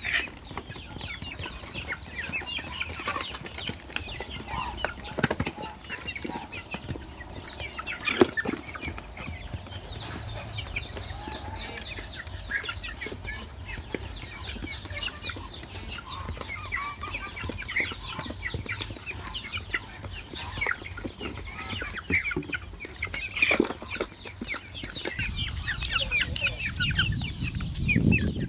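Village chickens clucking, with many short high calls throughout and a few sharp knocks.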